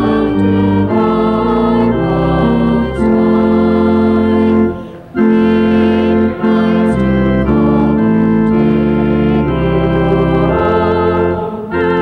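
Organ playing slow, held chords that change every second or so, with a brief break between phrases about five seconds in.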